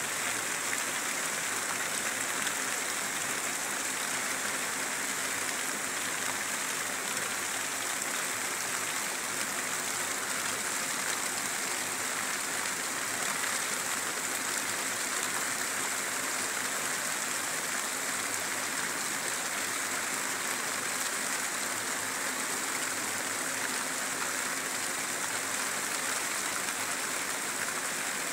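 Heavy rain falling steadily, a constant even hiss that does not let up.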